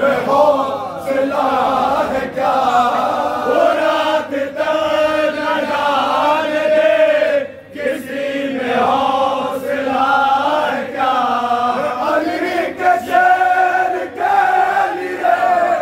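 Men chanting an Urdu noha, a Shia mourning lament, in a loud sustained melodic chant led by a reciter, with a short break about halfway through.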